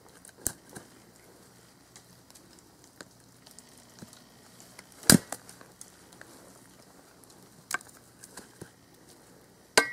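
Sharp knocks of a Cold Steel Special Forces shovel's sharpened steel blade striking a small stick of dead wood to split it. A few light taps, with one much louder strike about five seconds in and another near the end.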